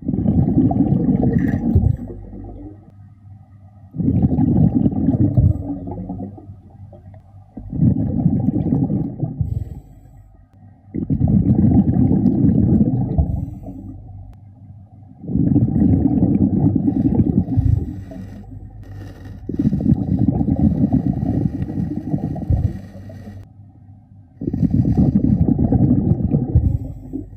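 Scuba diver breathing through a regulator: a low, muffled gush of exhaled bubbles about every four seconds, seven breaths in all, with quieter inhalations between them.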